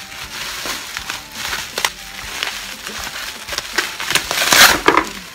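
Plastic bubble wrap around a parcel being crinkled and pulled open by hand: a run of crackles and sharp clicks, swelling into a louder, longer rustle about four and a half seconds in.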